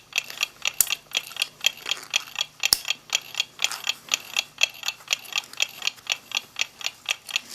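Steady, rapid clock ticking, about five ticks a second, with two sharper single clicks about a second in and just before three seconds.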